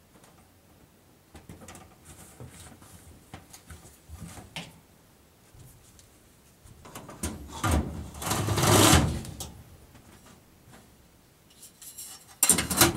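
Rubbing and scraping of a reloadable furnace filter and its frame being handled. It is loudest for about two seconds past the middle, with a few sharp knocks near the end.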